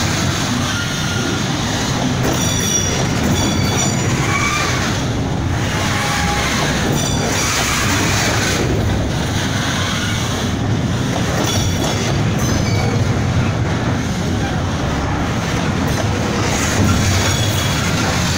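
Loaded freight-train flatcars rolling past close by: a steady rumble of steel wheels on rail, with brief high-pitched wheel squeals several times.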